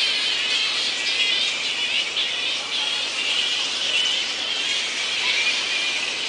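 A roosting colony of flying foxes (fruit bats) calling all at once: a steady dense chorus of many overlapping shrill, wavering squeaks and chatters.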